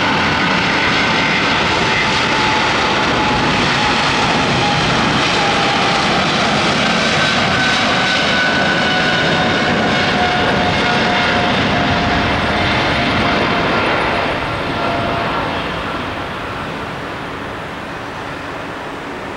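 Boeing 777-200LR's two GE90 turbofans at takeoff power during the takeoff roll: a loud, steady jet rushing noise with high whining fan tones that slowly fall in pitch as the airliner passes. The noise fades from about fourteen seconds in as it moves away down the runway.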